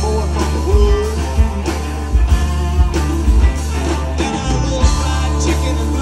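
Live country-rock band playing an instrumental passage: electric guitars and bass over a drum kit keeping a steady beat.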